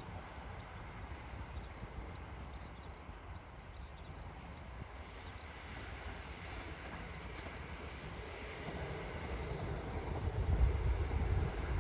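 Distant KiHa 85 diesel railcar train approaching, its engine and wheel rumble growing steadily louder over the second half. Short high chirps sound over the first few seconds.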